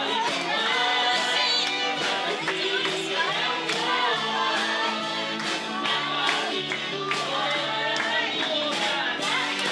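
Live worship band playing a song: singers over electric guitars and drums, with a steady beat.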